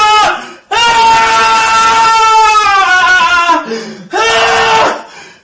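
A person's voice letting out long, drawn-out wails: one trails off just after the start, a long one of about three seconds sags in pitch at its end, and a shorter one follows near the end.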